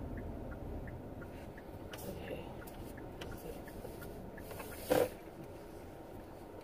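Inside a car cabin, a low engine and road rumble fades as the car slows. Faint regular ticking runs under it, and there is a brief thump about five seconds in.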